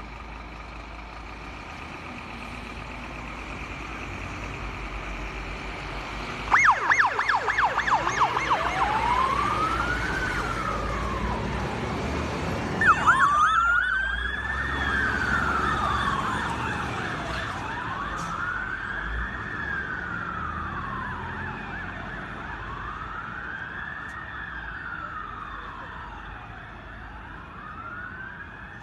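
Fire engine sirens on an emergency response over truck engine rumble. About six seconds in a siren starts with a rapid yelp, then changes to a slow wail rising and falling. A second yelp burst comes about thirteen seconds in, and the wail then cycles every four to five seconds.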